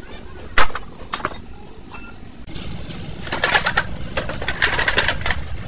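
Metal clanking as a truck wheel hub and its bearing parts are handled on a steel tray: one sharp clank about half a second in with a short metallic ring after it, then a run of rattling clinks in the second half.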